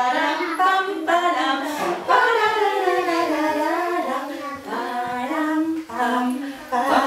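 Women singing a simple children's song, with young children's voices joining in: a melody of held notes.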